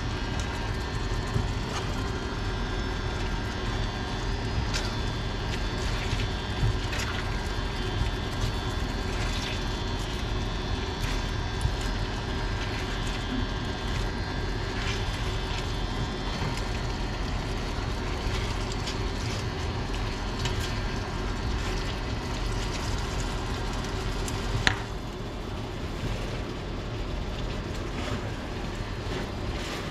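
Spaghetti and shrimp tossed in a stainless steel skillet with silicone-tipped tongs: scattered clicks of the utensils against the pan over a steady hiss and hum. A sharp click about 25 seconds in, after which the steady background drops a little.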